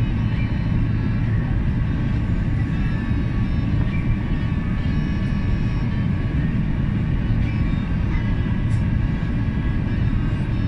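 Steady jet airliner cabin noise: engines and airflow heard from inside the cabin, a low, even din with faint steady high tones over it.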